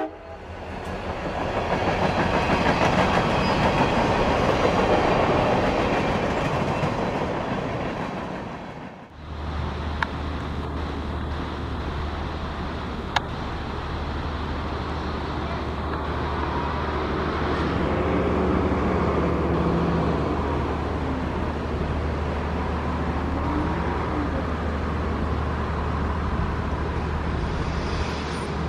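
Pikes Peak Cog Railway rack railcar running on the cog line, with a steady low engine drone and the rumble of wheels on rails and points, and a couple of sharp clicks. For the first several seconds there is a louder, even rushing noise that drops away suddenly before the drone sets in.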